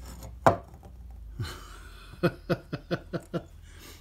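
A man chuckling to himself: a short huff of breath, then a run of about six quick laughs, some five a second.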